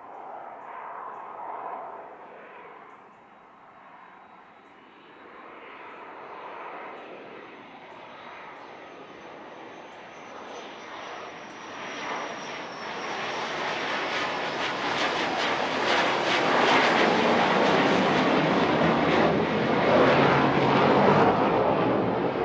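Military jet flying over, its engine noise swelling steadily and loudest near the end, with a thin high whistle in the first half.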